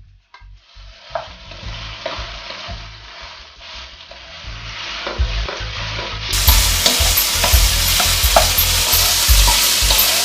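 Marinated chicken pieces sizzling in hot oil with garlic and ginger in a wok while being stirred, with scattered clicks and knocks of the utensil against the pan. The sizzle builds and turns much louder about six seconds in.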